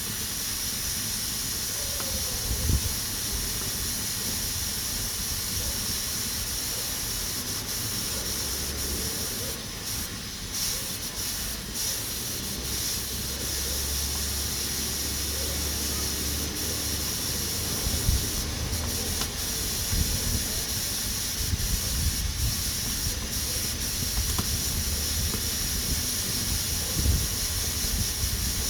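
Pressure cooker hissing steadily as steam escapes through its valve at full pressure. There are a few brief low thumps underneath.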